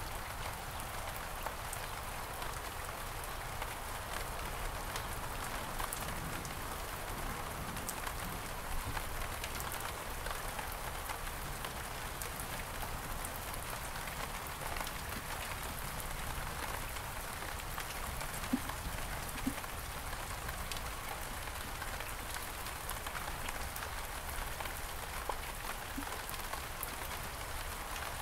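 Steady rain falling on several kinds of surfaces, a dense patter of drops with scattered individual drip clicks. Two sharper ticks stand out a little past the middle.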